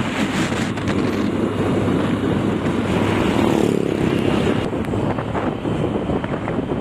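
A moving truck's engine and road rumble, with wind buffeting the microphone.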